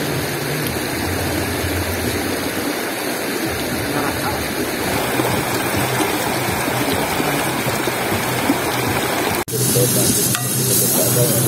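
Steady rush of flowing river water, with indistinct voices underneath. About nine and a half seconds in it cuts off for an instant and a brighter, hissier noise takes over.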